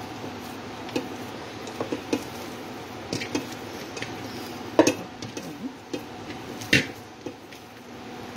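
Hands kneading soft bread-and-milk dough in a metal pot, with irregular knocks and scrapes of hand and dough against the pot's side. Two louder knocks come about halfway through and a couple of seconds later, over a steady low hum.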